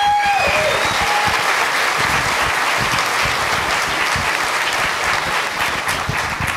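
Audience applauding, a steady crowd of clapping that starts to tail off near the end.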